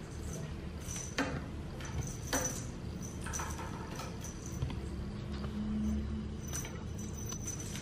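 A few sharp clicks and light scratchy taps from a kitten batting a wand toy with a wire and plastic rod against a tiled floor and table leg, over a steady low hum.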